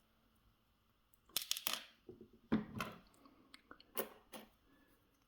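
Handling noise from a small padlock and its parts: a few short clicks and scrapes, in three clusters about a second apart.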